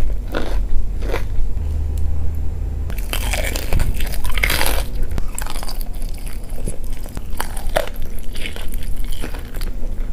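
Close-miked biting and chewing of crunchy food: irregular crisp crunches, with a few louder bites.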